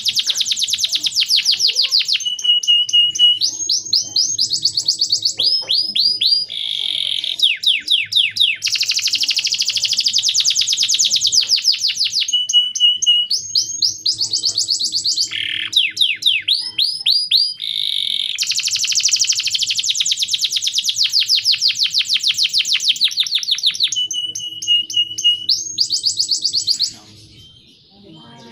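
Male canary singing a continuous song of fast rolling trills, held whistled notes and downward-sweeping slurred notes. The same run of phrases comes round about every nine to ten seconds, and the song breaks off just before the end.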